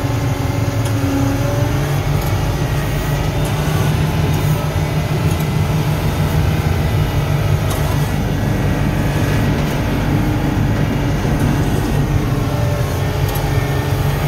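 Diesel engine of a Kershaw 32-8 railroad brush cutter running steadily, heard from inside its cab as a loud, even low drone.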